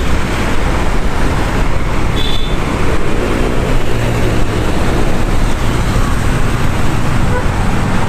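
Busy road traffic close by: a tour coach's engine and passing minibuses and motorcycles make a steady, loud rush of engine and tyre noise. A brief high beep comes about two seconds in.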